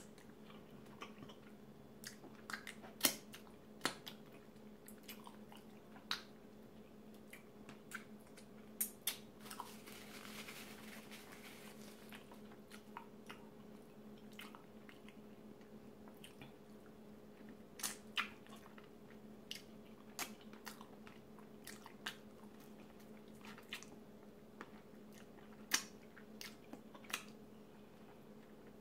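A person chewing and biting into buffalo chicken wings, with scattered sharp wet mouth clicks and smacks. A faint steady hum runs underneath.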